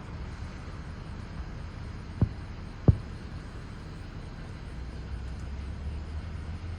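Two distant firework shells bursting, dull booms about two seconds in and again under a second later, over a steady low rumble.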